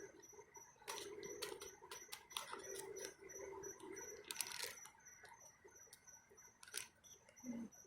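Faint rustling and light, irregular ticking of a small seed packet being handled as seeds are shaken out of it into a pot.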